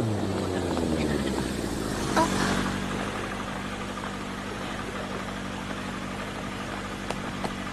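Motorcycle engine idling with a steady low hum. A brief pitched sound rises and falls about two seconds in.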